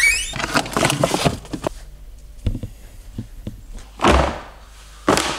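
Refrigerator door opened, with clatters and knocks as food is taken out. About four seconds in, a heavy thump as a plastic bag of chicken is set down on a wooden worktop.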